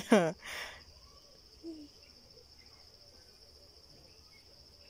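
Crickets trilling, a steady high-pitched drone that goes on without a break.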